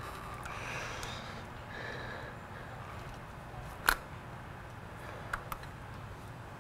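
Flathead screwdriver prying at a plastic wiring connector to unplug it: soft scraping, then one sharp click about four seconds in and two small clicks a second and a half later, over a low steady hum.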